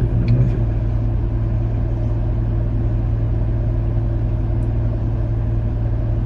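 A stopped vehicle's engine idling with a steady low hum.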